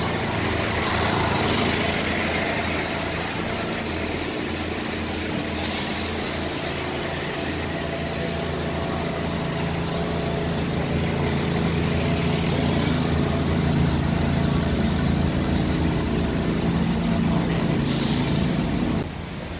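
Transit bus engines running as the buses drive slowly past, a steady low drone. Twice, about six seconds in and near the end, a short hiss of air released from the air brakes.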